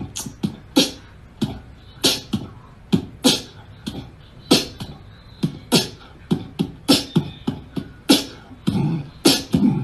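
A rhythmic run of sharp, mouth-made or drum-like percussive hits, several a second and unevenly spaced, with deep kick-like thuds and hissy snare-like snaps.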